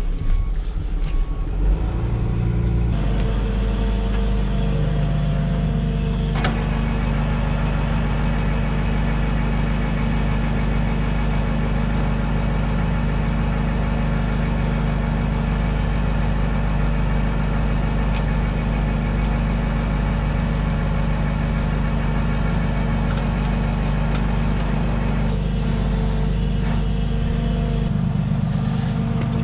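Ram tow truck's engine running steadily, with a click about six seconds in after which a higher mechanical whine joins the engine sound.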